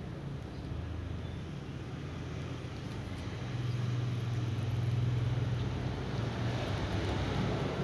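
Low, steady motor hum, like a running engine, under a faint noise haze. It grows louder about three and a half seconds in and eases a little near the end.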